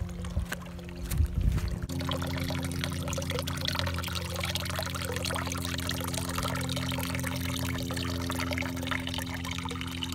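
Water from a garden hose pouring and splashing steadily into a shallow, freshly filled pond. A few knocks sound in the first two seconds.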